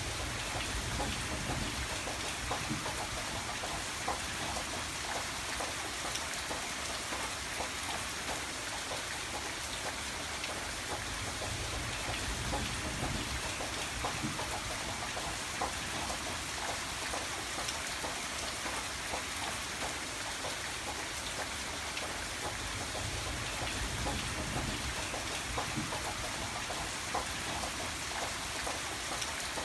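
Steady rain falling, with many separate drops ticking against a surface.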